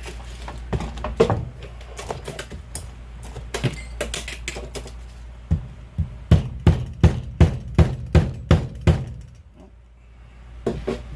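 Hand tools knocking and clicking on metal while a CV axle boot clamp is worked on, then a quick run of about nine sharp, even knocks over some three seconds.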